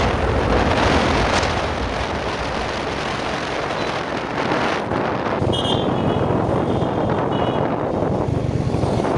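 Motorcycle running at road speed, with wind buffeting the microphone.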